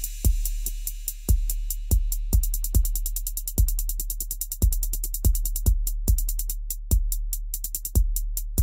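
Electronic background music with a drum-machine beat: kick drum hits under fast hi-hat ticks and a held low bass note.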